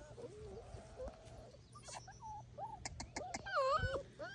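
Bernese mountain dog puppies yipping and whining in a string of short high calls that grow louder and more frequent near the end. A few sharp clicks come just before the loudest calls.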